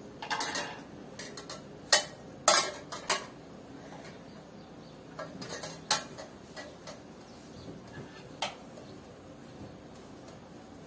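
Bed being made: pillows and bedding handled, with fabric rustling and several sharp clicks and knocks, the loudest about two seconds in and again half a second later.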